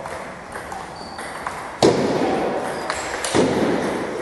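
Table tennis rally: the ball clicking off bats and the table at a quick, irregular rhythm, ringing in a large hall. Two much louder knocks come about two seconds in and again about a second and a half later.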